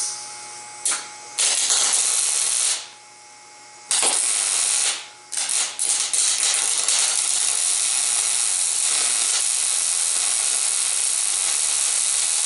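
Electric arc welding: the arc crackles and hisses in several short bursts over the first five seconds, then holds as one steady bead from about five seconds on.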